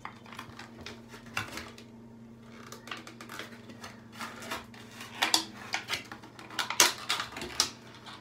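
A plastic cosmetic jar and its clear plastic packaging being handled and pried at: irregular clicks, crinkles and small clatters of hard plastic. They come busier and louder in the second half.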